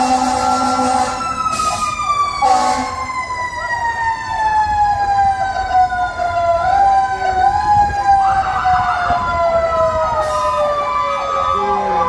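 Fire truck's siren winding down, its wail falling slowly and steadily in pitch over about ten seconds. A held horn blast ends about a second in, and a short horn blast follows a couple of seconds in.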